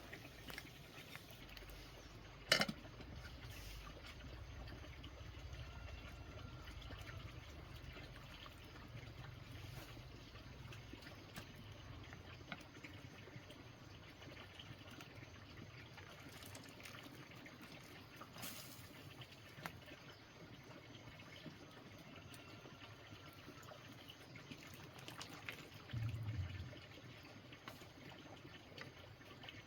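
Faint trickling, pouring water, with a sharp click about two and a half seconds in and a low thump near the end.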